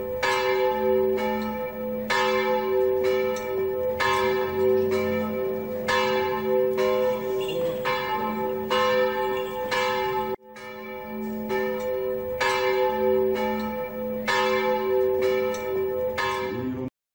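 Church bells ringing, struck about once a second, each stroke ringing on into the next. The ringing breaks off abruptly about ten seconds in, starts again at once, and stops sharply near the end.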